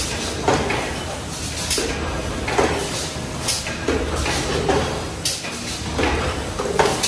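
Automatic aluminium foil container press running, stamping in an even rhythm of about one stroke a second over a steady low machine hum.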